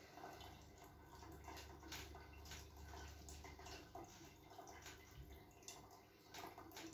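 Near silence: quiet room tone with faint scattered soft ticks, and a low hum during the first few seconds.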